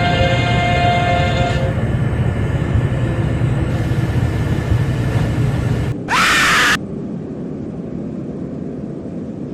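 Eerie horror soundscape: a low rumble under sustained ominous tones that fade out in the first two seconds. About six seconds in comes a short, loud, rising scream-like shriek, after which the rumble carries on more quietly.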